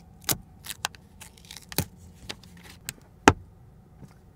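Handling noise of a small wireless clip-on microphone with a furry windscreen being fixed onto a car's sun visor: a string of sharp clicks and taps, the loudest about three seconds in.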